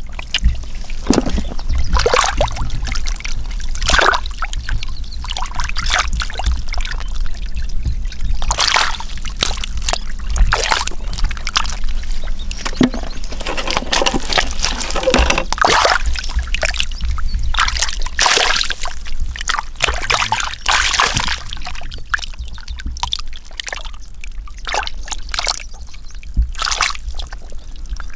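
Muddy water splashing, sloshing and trickling, with many irregular splashes as mud and water are scooped out of a shallow drainage channel and, near the end, hands grope through a muddy pool.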